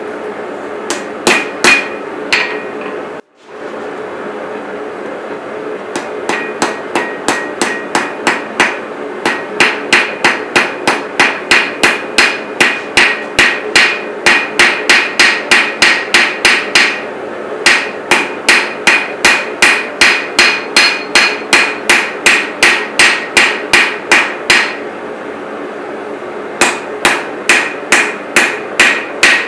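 Hand hammer striking hot steel on an anvil as a knife blade is forged: long runs of blows at about three a second, each with a short metallic ring, broken by a few pauses. A steady hum runs underneath.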